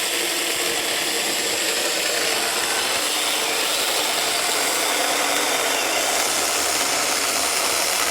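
Saker mini battery-powered chainsaw running steadily and cutting through wood with light pressure on the bar.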